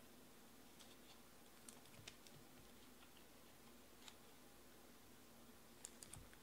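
Near silence: faint room tone with a few soft, scattered clicks, three of them close together near the end.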